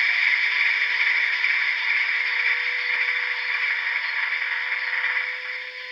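Sound decoder of an HO-scale REE SNCF BB67000 model locomotive running, a steady diesel engine sound through the model's small onboard speaker, dropping in level about five seconds in.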